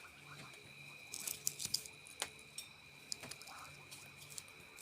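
Faint clicks and small taps of a slip joint pocket knife being handled, a few close together about a second in and single ones later, over a faint steady high-pitched whine.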